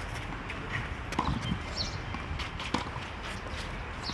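Scattered light knocks and footsteps on a clay tennis court, with two louder knocks, over a steady low rumble.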